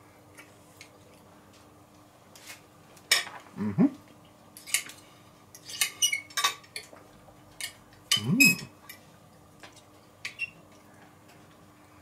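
Fork clinking and scraping on a plate while eating, with chewing and two short hummed 'mm' sounds, about a third of the way in and again past halfway.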